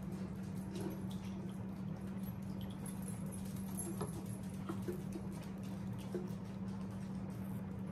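Spatula scraping cooked ground beef out of a nonstick skillet into a pot of tomato sauce: scattered light scrapes and taps over a steady low hum.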